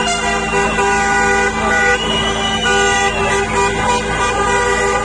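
Many car horns honking at once, several steady tones overlapping and held, as a line of cars drives slowly past; a higher tone rises and falls over them about two seconds in.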